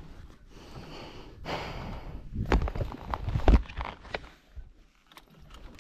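A rider's forceful breaths and sniffs close to the microphone, several in a row about a second apart, with handling knocks as the goggles are pulled down, the loudest about three and a half seconds in.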